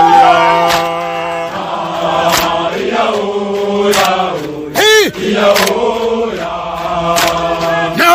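Soldiers' song: a group of men's voices chanting together in long held notes, with a handful of sharp percussive hits. One voice slides up and down about five seconds in.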